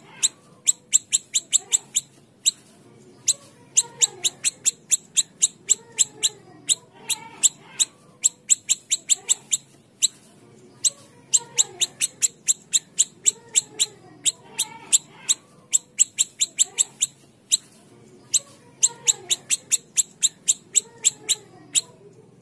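A siri-siri kecil calling a fast series of sharp, high chip notes, about four a second, in runs broken by short pauses, with softer lower gliding notes underneath.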